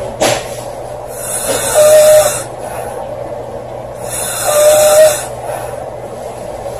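A girl snoring loudly: two long, raspy snores about three seconds apart, each carrying a steady pitched tone. A couple of short, sharp sounds come right at the start.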